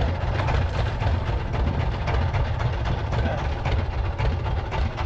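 Boat engine running, a steady low rumble.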